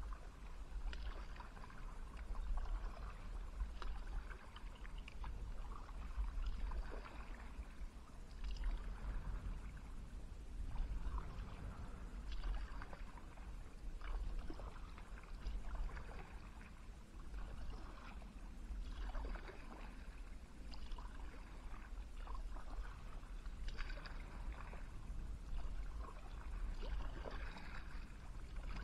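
Kayak paddle strokes in calm river water, a splash and drip about every two seconds, over a steady low rumble.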